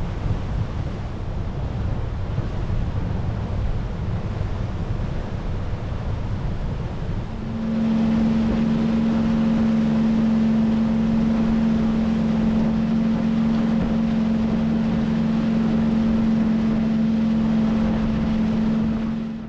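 Boat engine running underway, with wind buffeting the microphone and water rushing past the hull. About a third of the way in, a steady engine hum comes up louder and holds an even pitch, then cuts off suddenly at the end.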